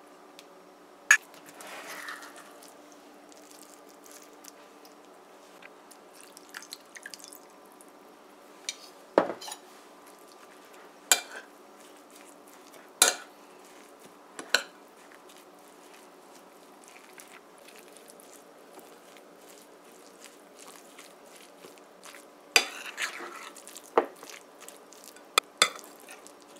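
Metal spoon clinking and scraping against a ceramic plate while stirring spices and chopped seasonings into a wet curry paste. There are about ten sharp clinks scattered through, with short spells of scraping about two seconds in and near the end, over a faint steady hum.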